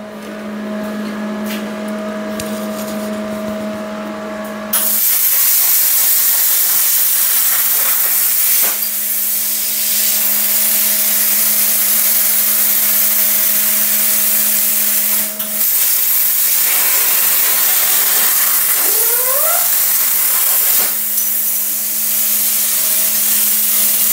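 ArcDroid CNC plasma cutter cutting 16-gauge sheet steel at 30 amps. A steady hum comes first. About five seconds in, a loud, even hiss of the cutting arc and air starts and carries on, breaking briefly twice, with short rising whines near the end.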